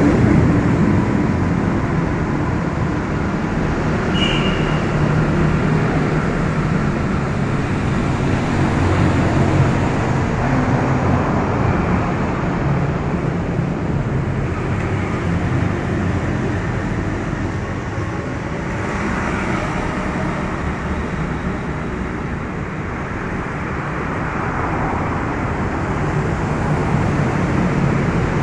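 Road traffic passing beneath a concrete flyover: a steady mix of engine and tyre noise from motorcycles and rickshaws, swelling and easing as vehicles go by.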